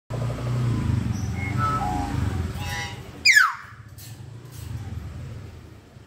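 A common hill myna gives one loud whistle that falls steeply in pitch about three seconds in, with a few short, thin notes before it. A motor vehicle engine runs underneath for the first half and fades out around the time of the whistle.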